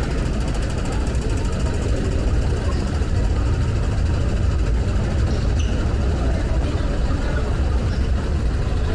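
Steady low rumble of the underground MTR metro system, with no distinct events standing out.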